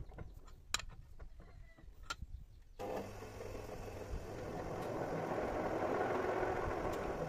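Two sharp metal clinks from the chuck key on a large four-jaw lathe chuck. About three seconds in, the lathe is switched on by its spindle lever and the chuck spins up, a steady machine whir with a low motor hum that grows louder toward the end.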